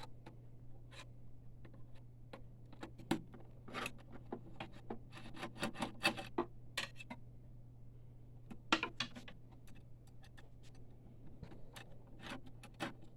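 Scattered small clicks and scrapes of a screwdriver and metal parts being handled while screws holding a printer chassis are undone, over a steady low hum.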